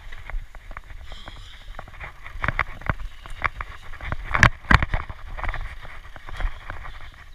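Mountain bike ridden downhill on a dry dirt trail: tyres rumbling over the ground with a steady rattle of clicks and knocks from the bike, and a couple of heavy thumps about four and a half seconds in as it hits bumps.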